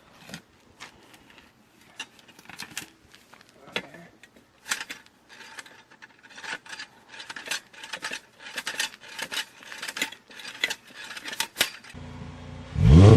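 A run of sharp clicks and rasping metal-on-metal scrapes, growing busier and louder. About twelve seconds in, the 2010 VW Jetta's engine starts and revs, loud and with its muffler cut off.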